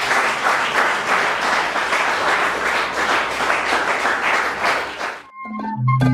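Applause from a crowd clapping steadily. About five seconds in it cuts off abruptly and a short musical jingle of held notes begins.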